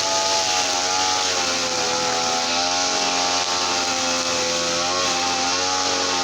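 Small gasoline brush cutter engine running steadily, its speed wavering slightly up and down.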